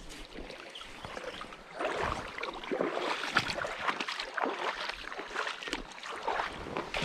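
Shallow stream water flowing, then from about two seconds in, irregular splashing and rustling close to the microphone as an angler moves through the water's edge.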